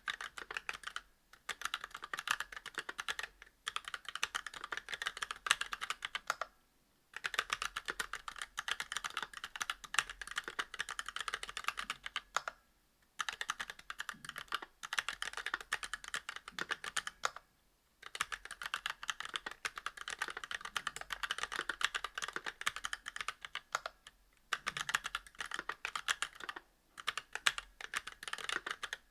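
Continuous typing on a mechanical keyboard with Kailh Box Black linear switches, a brass plate and GMK keycaps: rapid keystroke clacks in long runs, broken by brief pauses every few seconds.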